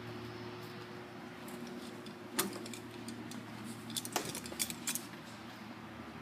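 Sharp metallic clinks and jingling, like keys or loose metal parts: one about two and a half seconds in, then a cluster around four to five seconds in. A steady low hum runs beneath.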